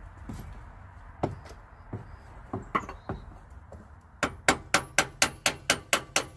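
Hammer strikes on the starter motor case of a 2005 Toyota Sienna: a few scattered knocks, then a quick run of about ten sharp strikes, roughly five a second, near the end. It is the classic smack to free a starter that gives not even a click when the key is turned.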